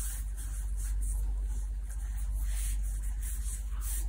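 Hand scraping and scooping loose damp soil across a plastic sheet to pack a coconut shell, heard as several short rustling scrapes, over a steady low hum.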